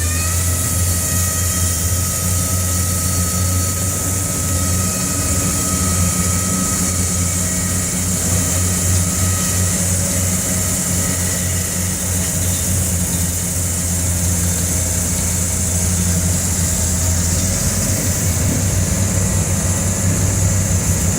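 Diamond wire saw running steadily while plunge-cutting through a thick concrete wall: a constant low drone with a steady high hiss over it.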